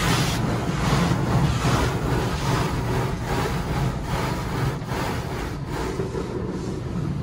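Water and foam spraying onto a car's windshield and body in an automatic tunnel car wash, heard from inside the cabin: a steady rushing spray over a low machinery hum, with irregular swells as the spray sweeps across the glass.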